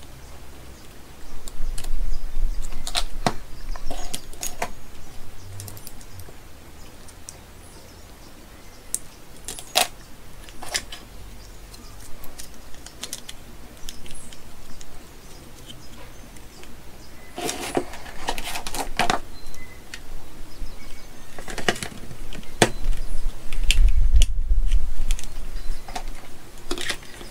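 Scattered clicks, taps and clatter of lithium-ion cells and the plastic housing of a Milwaukee M18 battery pack being handled and fitted together with a small screwdriver. There are heavier bumps near the end as the pack is set onto its charger.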